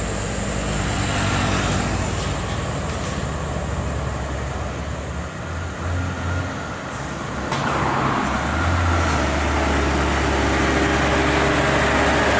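Heavy diesel truck engine running as the truck drives along the road, with tyre and road noise. The sound changes abruptly about seven and a half seconds in and grows a little louder after that.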